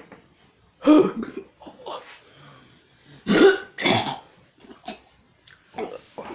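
A person making harsh, cough-like vocal noises in two main bursts, one about a second in and one around three and a half seconds in, with softer short ones between and after.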